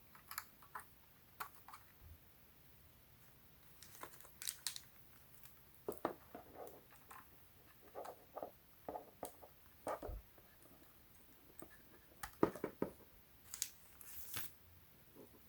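Faint handling noises: scattered light clicks and rustles of small plastic JST-XH balance connectors and thin wires being handled, with a few sharper clicks.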